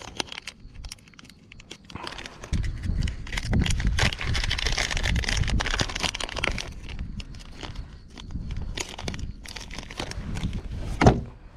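A plastic bait bag of soft-plastic jigs crinkling and crackling as it is handled and opened, busiest through the middle, over a low rumble. A single sharp knock comes near the end.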